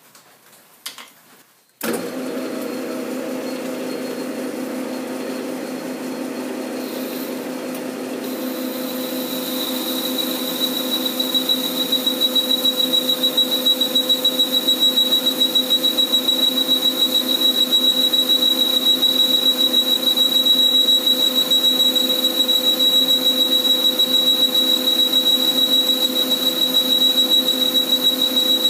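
Metal lathe starts up about two seconds in and runs steadily. From about ten seconds in, a boring bar cuts inside the bore of the spinning clutch hub, adding a high steady whine and a louder, rapidly fluttering sound.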